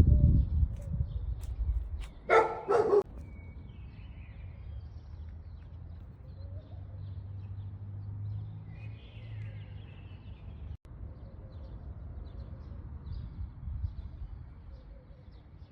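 A single loud, drawn-out pet animal call about two seconds in, over a low rumble. Faint high chirps follow later.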